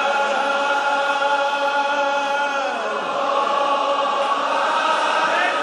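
Many voices chanting a Muharram lament (noha) in unison, holding long notes, the melody stepping down in pitch about three seconds in.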